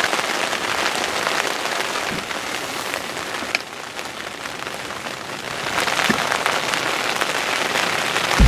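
Heavy rain pouring down on a hunting ground blind: a dense, steady hiss with a few sharper drop hits.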